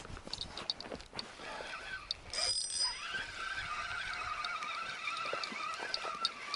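Fishing reel being wound in after a bite: a steady, wavering whirr from about three seconds in, preceded by scattered light clicks and a brief high ringing tone.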